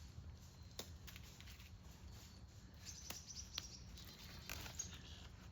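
Faint, short bird chirps over a low steady background hum, with a few sharp clicks.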